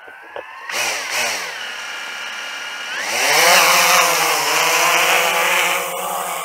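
DJI drone's motors and propellers spinning up with a rising whine, then a steady buzz, then climbing in pitch and growing louder about three seconds in as the drone lifts off and holds a low hover.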